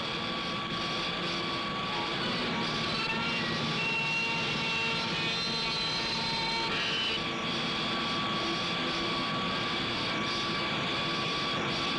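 Milling machine running, its cutters shaping steel rifle receiver billets under a flood of coolant: a steady mechanical drone with high whining tones, some of which come and go partway through.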